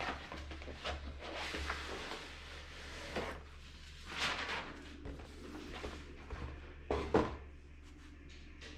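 Handling noise: scattered rustles, scrapes and knocks of objects being moved and set down, the loudest two knocks about seven seconds in, over a steady low hum.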